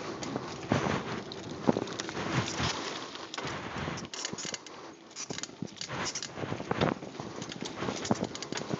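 Mountain bike rolling fast down a dirt singletrack: tyres running over packed dirt with an irregular clatter of knocks and rattles as the bike hits bumps and roots.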